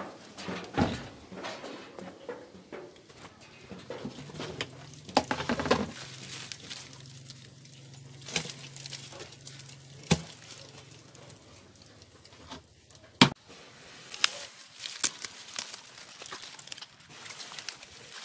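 Scattered handling noises from hands at a plastic cricket tub: rustling and crinkling as leafy greens are put inside, and light plastic clicks and knocks, the sharpest about 13 seconds in. A faint low hum runs under the middle part.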